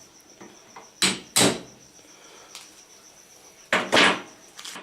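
Hammer striking a center punch set on a block of very hard wood, four sharp blows in two pairs: marking the spot to drill. Crickets chirp steadily behind.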